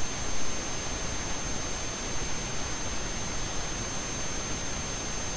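Steady hiss of recording noise with a constant faint high-pitched whine running through it.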